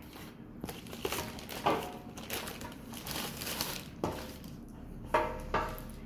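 Clear plastic packing bag crinkling and rustling as an induction cooktop is pulled out of it, with a few light knocks from handling the packing.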